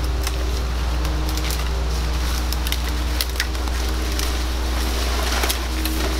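Branches and dry twigs cracking and rustling as a person forces his way through thick brush. Under it runs a steady low hum.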